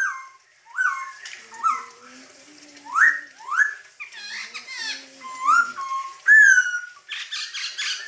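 Caged laughingthrush (poksay hongkong) singing loudly: a run of clear slurred whistles, some sweeping up and some dropping, that breaks into a quick chatter near the end.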